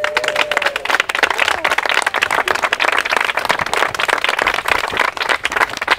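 A small group of people clapping steadily in applause, with a brief voice call near the start.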